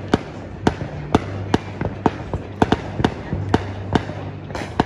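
Fireworks going off: a rapid, irregular run of sharp bangs and pops, about two or three a second, over an on-and-off low hum.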